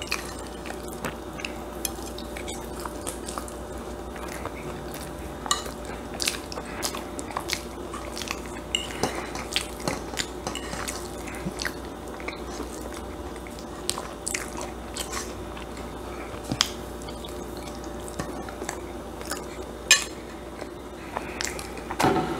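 Close-miked eating: a fork clinking and scraping on a plate while shepherd's pie is chewed, with many short, irregular clicks and mouth sounds over a faint steady hum.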